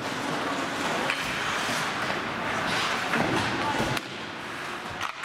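Ice hockey play in an indoor rink: a steady wash of rink noise with voices and several knocks of sticks and puck, the sharpest near four seconds, after which the sound drops quieter.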